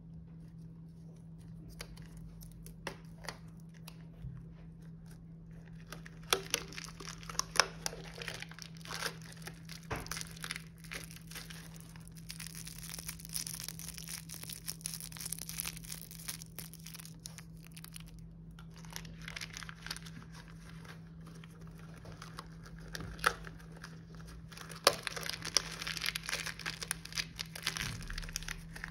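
Candy wrappers being handled and unwrapped: plastic and foil wrapping crinkling and tearing with sharp crackles. It is mostly quiet with a few faint clicks at first, and the crinkling starts about six seconds in and goes on in bursts.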